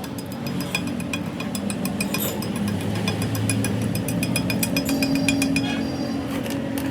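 Rapid, irregular metallic tapping and clinking, several strikes a second, over a steady low machine hum.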